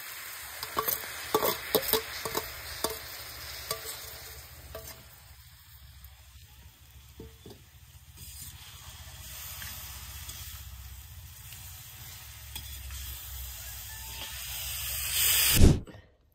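Small river prawns sizzling as they fry in a pan, with a spoon clicking against the pan as they are stirred during the first few seconds. The sizzle swells near the end and then cuts off abruptly.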